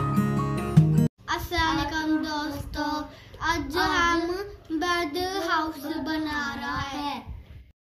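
Strummed acoustic guitar music for about a second, cut off abruptly, then a child's voice singing a short melody in several phrases.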